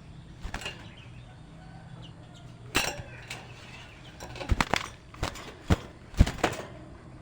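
A woodpecker pecking: a string of irregular, sharp knocks, one near the start, a louder one a few seconds in, then a quicker cluster toward the end.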